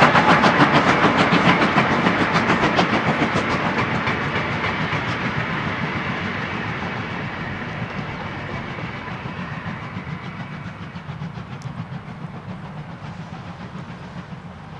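GWR steam locomotive 4930 'Hagley Hall' and its goods wagons running past and away, a fast rhythmic clatter that fades steadily.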